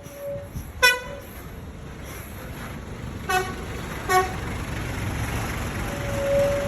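Bus basuri horn: three short toots, then about six seconds in a long steady flute-like note that starts its tune. Engine and traffic noise grows louder underneath.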